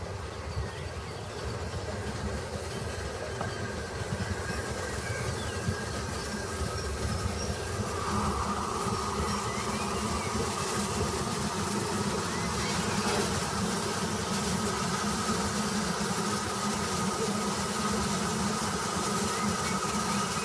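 Stanier Black 5 steam locomotive running slowly into a station at the head of a train, a steady rumble of wheels on rail that grows louder as it nears. A steady high whine joins about eight seconds in.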